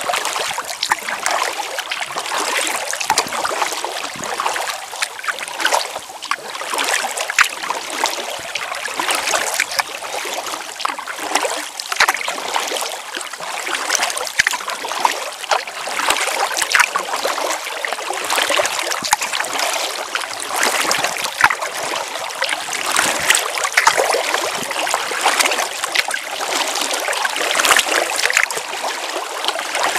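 Water rushing and splashing along the side of a Venture Flex 11 kayak's hull as it is paddled upstream against a fast current, with irregular splashes from the paddle strokes.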